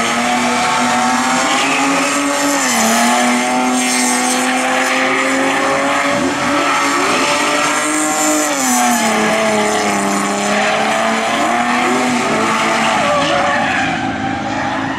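BMW drift cars spinning donuts with engines held at high revs and tyres squealing and skidding. The engine pitch holds level and steps down twice, about two and a half and nine seconds in.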